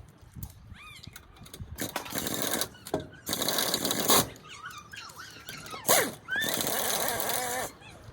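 Impact gun running wheel nuts onto a car's wheel studs in several short bursts, with brief high squeals in the gaps between.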